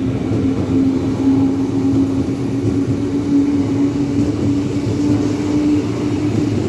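KRL Jabodetabek electric commuter train moving along the platform: a loud, steady rumble with a motor hum that rises slowly in pitch as the train picks up speed.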